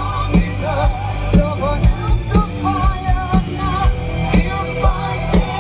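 A melodic hard rock band playing live through a PA, recorded from the crowd: a male lead vocalist sings held, wavering notes over electric guitar, bass and a steady drum beat of about two hits a second.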